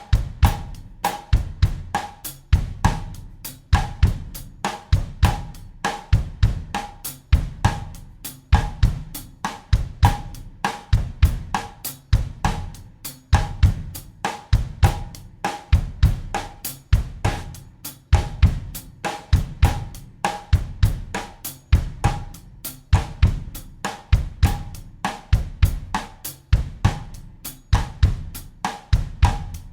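Acoustic drum kit playing a steady bossa nova groove in 4/4 at 100 BPM, with kick drum, cross-stick snare clicks and steady hi-hat or cymbal strokes repeating as an unchanging loop.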